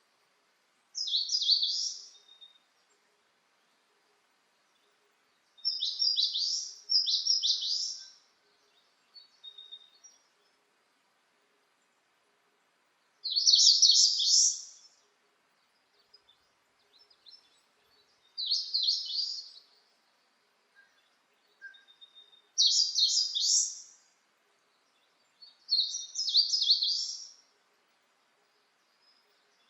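A songbird singing short, high phrases of a few quick notes, repeated about every four to five seconds, with a few faint softer notes between them.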